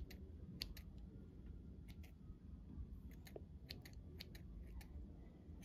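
Small scissors snipping nose hair: a dozen or so faint, sharp snips at an uneven pace.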